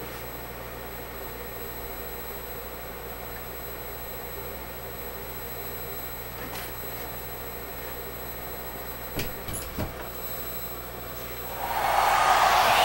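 Steady room tone with a low electrical hum and thin high whine, broken by a few faint knocks about nine to ten seconds in; near the end a rushing noise swells up.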